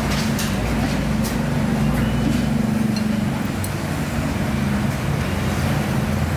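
Road traffic: a vehicle engine running with a steady low drone, with a couple of short sharp noises over it in the first second and a half.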